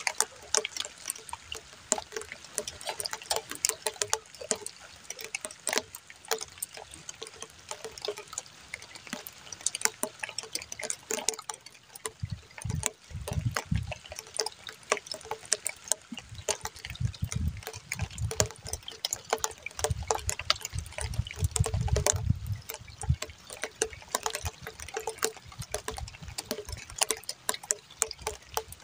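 Water lapping and splashing, with many sharp, irregular clicks and knocks. About midway there are spells of low rumble.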